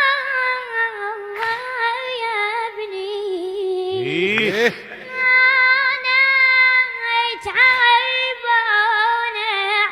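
A high, young-sounding voice singing a mournful Arabic lament, with long held notes that waver in pitch and short breaks between phrases.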